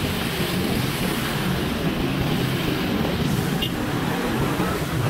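Steady traffic noise in slow, congested traffic: a motorcycle engine running low among creeping cars.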